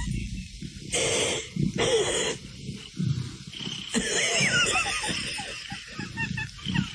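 A cat hissing in two short bursts about a second in, then a longer hiss with high squeaky glides over it.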